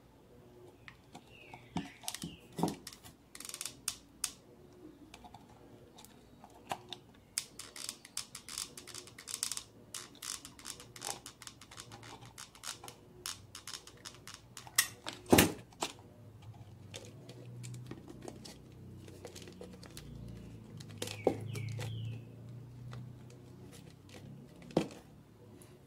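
Thin PET bottle plastic crackling and clicking in irregular runs as cut pieces are handled and pressed together for hot-gluing, with a sharper knock about 15 seconds in.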